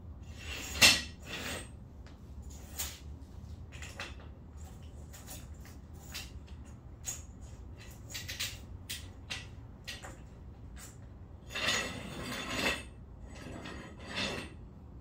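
Scattered sharp clicks and clinks of hard stone and metal as a geode is handled and cracked open, with a loud knock about a second in and a louder burst of clatter near the end.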